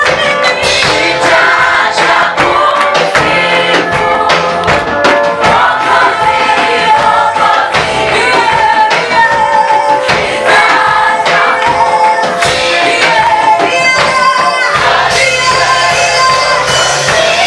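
A choir singing gospel music with instrumental backing and a steady beat.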